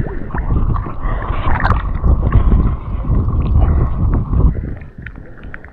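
Loud, close splashing and sloshing of water at the surface as a fish caught in a gill net thrashes and is grabbed by hand. The sloshing dies down about four and a half seconds in.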